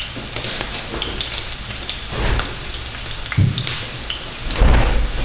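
Chopped onion sizzling and crackling in hot oil in a frying pan, with a dull knock about three seconds in and another near the end.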